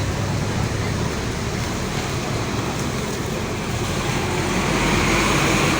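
Steady road traffic and bus engine noise, a continuous rumble that swells slightly near the end.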